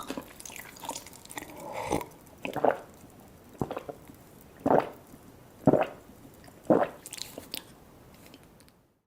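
Close-miked eating: biting and wet chewing, with five louder chews about a second apart, before the sound cuts off suddenly near the end.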